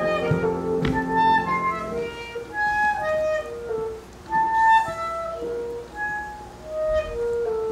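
Live pit orchestra: a sustained chord dies away about two seconds in, leaving a solo woodwind playing a slow melody of separate held notes. A knock sounds about a second in.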